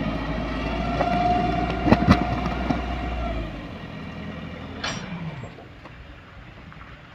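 A dump truck's engine runs under load with a held whine while the hydraulic hoist raises the tipping bed, and two sharp metal clanks come about two seconds in. After about three and a half seconds the engine note drops away and the sound turns quieter as the load slides out.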